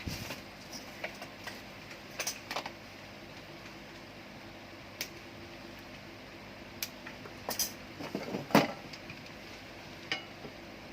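Welding machine running with a steady hum, broken by several sharp clicks and knocks; the loudest knock comes about eight and a half seconds in.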